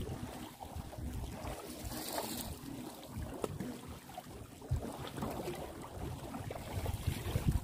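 Wind rumbling on the microphone over water sloshing around a small wooden outrigger canoe being paddled, with scattered light knocks and a brief splash about two seconds in.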